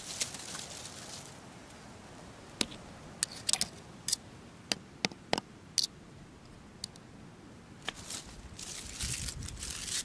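Rustling of dry leaves and twigs, with a scattered run of about ten short, sharp snaps and cracks in the middle, as dry wood is handled and broken.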